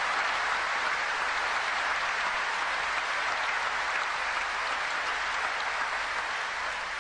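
Audience applauding steadily, dying down slightly near the end.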